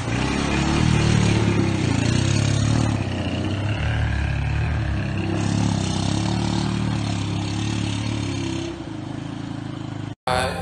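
ATV engines running on the move: a steady low engine drone with rough noise from the ride. It cuts off suddenly near the end.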